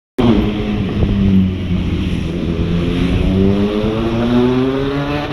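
An engine revving up, its pitch climbing steadily as it accelerates; the sound starts abruptly just after the beginning.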